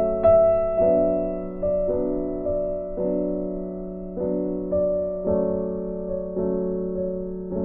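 Background music: a soft piano or electric piano playing slow sustained chords, a new note or chord every half second to a second.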